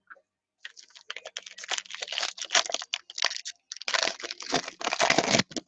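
Foil wrapper of a 2019 Topps Inception trading-card pack being crinkled and torn open by hand: a run of irregular crackles and rips with a short break partway through.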